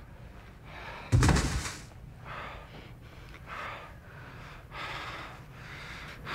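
A person breathing hard in heavy gasps, about one breath a second. One loud bang comes about a second in.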